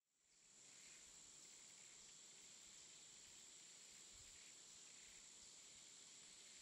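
Faint, steady high-pitched insect drone, fading in over the first second.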